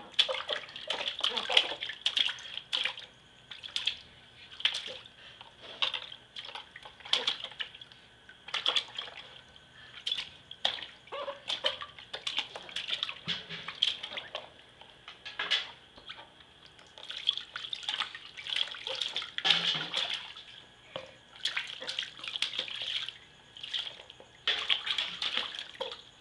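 Water splashing in a plastic baby bath as hands scoop and slap it, in short, irregular splashes several times a second with brief pauses between runs.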